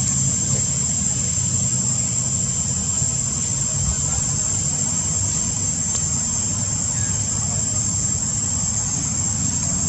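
A steady, high-pitched insect drone over a constant low rumble, with no break or change.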